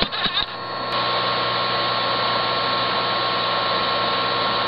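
A MacBook's slot-loading SuperDrive taking in a DVD with a few clicks, then about a second in the disc spins up to a steady whir as the drive reads it.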